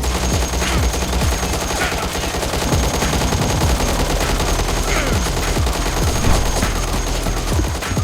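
Rapid, sustained gunfire sound effects, shots overlapping in quick bursts.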